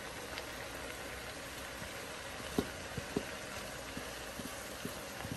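Steady hiss of a pot of tomato base simmering on the stove. From about halfway through come a handful of light, sharp taps as chopped greens are pushed from a plastic colander into the pot with a wooden spatula.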